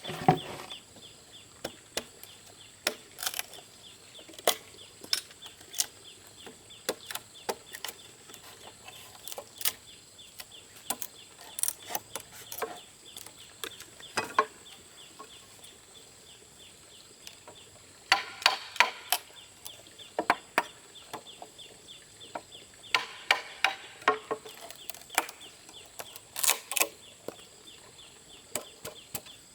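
Chickens clucking, mixed with scattered short, sharp taps and knocks. Two runs of quick clucking come past the middle.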